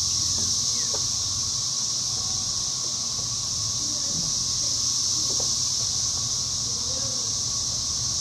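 A steady high-pitched hiss that never changes, with a fainter steady tone beneath it and a low rumble.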